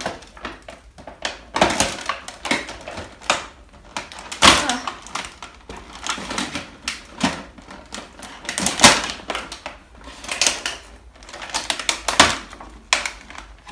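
Stiff ridged plastic plant sleeve crackling and rustling as it is handled and worked off a potted plant. The crackles come in irregular clusters, the loudest about four and a half and nine seconds in.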